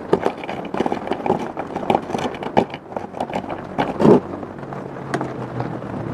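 Hands working a potted succulent and its soil: irregular scraping, crackling and clicking of soil and pot, with one louder sound about four seconds in. A low steady hum comes in near the end.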